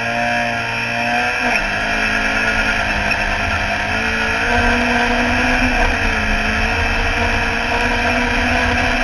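Autograss racing car's engine at hard throttle, heard from inside the stripped car, revving up as it accelerates away across the dirt track. Its pitch climbs, drops sharply about a second and a half in as it changes up, then climbs and dips again, over a steady low rumble.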